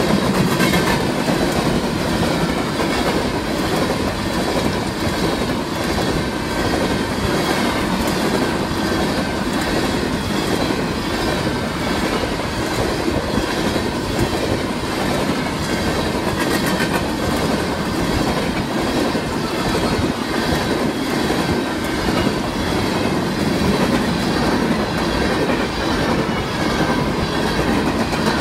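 Empty coal cars of a long freight train rolling past at about 60 mph: a steady rumble of steel wheels on the rails.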